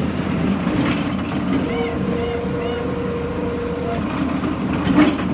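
Piling machine's motor running with a steady drone and hum, with a click about a second in and a sharp knock about five seconds in.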